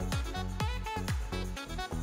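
Background music with a steady beat, about three drum hits a second, under a melody.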